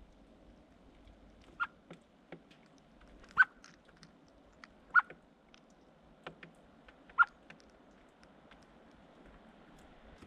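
Small birds making irregular sharp taps and clicks close to the microphone, four louder ones among fainter ones, over a faint steady background.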